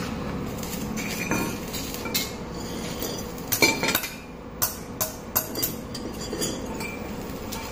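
Short metallic clinks and knocks of pieces of steel square tubing being handled and knocked against each other, with several sharp clinks from about halfway on.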